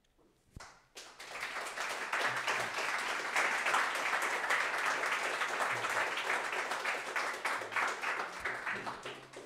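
Audience applauding: many hands clapping, starting about a second in, holding steady and dying away near the end.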